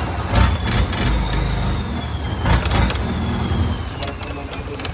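Motorboat engine running as the boat moves along the canal, with a steady low rumble and a thin high whine that slowly falls in pitch.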